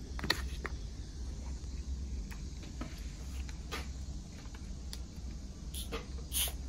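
Metal fork tapping and scraping against a plastic bowl: scattered light clicks, the loudest a third of a second in and a little after six seconds, over a steady low rumble.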